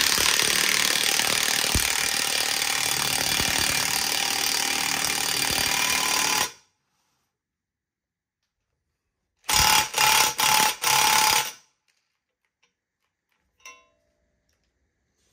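Impact wrench turning the screw of a C-frame ball joint press, pressing a new upper ball joint into a steering knuckle. It hammers steadily for about six and a half seconds and stops, then gives four short bursts a few seconds later.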